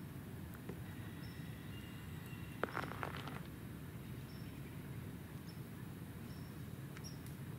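Quiet woodland ambience. A short high chirp repeats every second or so, and a brief crackle comes about three seconds in, over a steady low rumble.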